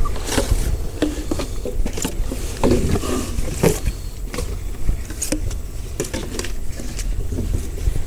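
Handling sounds: a woven plastic bag rustling and plastic jars knocking and scraping as they are taken out and set down, in irregular clicks and scrapes over a steady low rumble.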